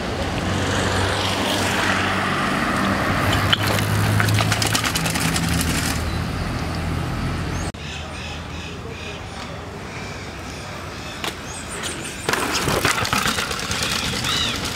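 Street noise with a motor vehicle's engine running steadily; it stops suddenly about halfway. Then a quieter stretch with birds calling, and near the end the rushing noise of a downhill mountain bike rolling over paving and steps.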